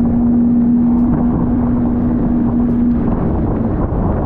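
Jet ski engine running at speed with a steady pitch under heavy wind noise on the microphone; the engine's tone breaks off near the end.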